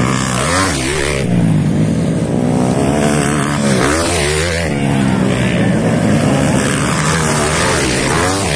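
Motocross bikes racing past one after another on a dirt track, their engines revving up and down through a turn, one engine note overlapping the next as each bike passes.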